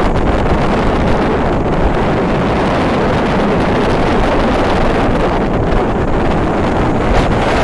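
Strong wind buffeting the microphone in a steady rumble, over rough sea surf breaking and spraying against a sea wall.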